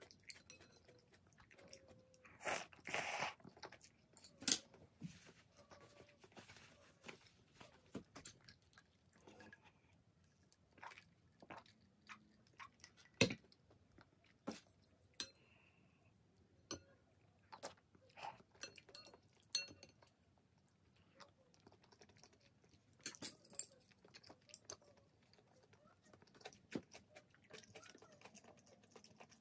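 A person eating Shin Ramyun noodles and kimchi: chewing and mouth sounds with many short clicks, a longer noisy burst about three seconds in, and one sharp click about thirteen seconds in.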